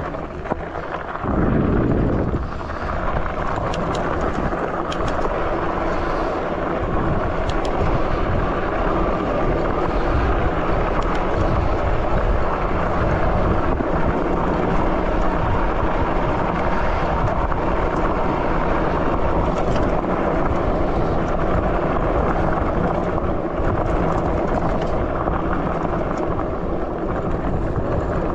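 Steady wind rumble on a handlebar-mounted microphone, mixed with tyre noise as an e-bike rolls over a gravel track. A louder low rumble comes about two seconds in.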